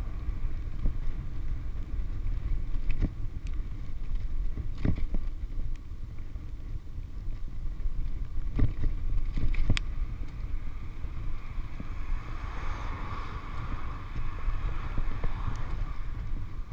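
Wind rushing over the microphone and road rumble from a loaded touring bicycle rolling fast downhill on tarmac. A few sharp knocks come through, the loudest about nine and ten seconds in.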